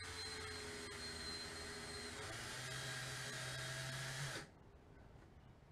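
Cordless drill driving a self-tapping screw down into a boat deck: a steady motor whine with a slight change in pitch midway, cutting off suddenly a little over four seconds in as the screw seats.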